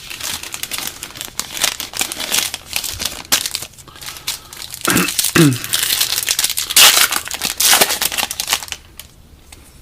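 Foil wrapper of a trading-card pack crinkling as it is torn open and handled. The crinkling goes busily until about nine seconds in, then quiets.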